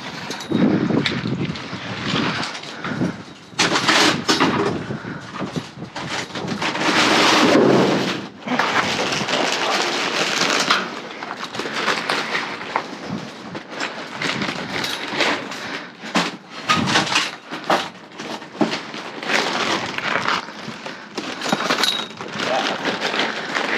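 Repeated clattering, knocking and rustling of goods and packaging being rummaged through and pulled out of a dumpster, with a longer scraping rustle around seven to eight seconds in.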